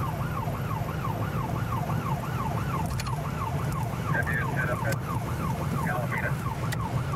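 Police siren in a fast yelp, rising and falling about three times a second without a break, heard from inside a moving patrol car over the steady rumble of its engine and tyres.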